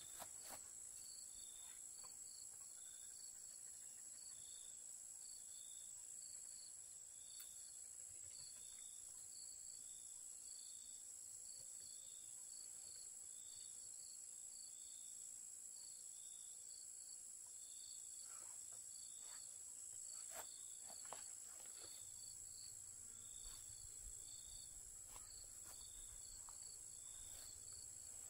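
Steady high-pitched insect drone with a regular rhythm of short chirps running through it, faint overall. A few faint knocks come in the last third.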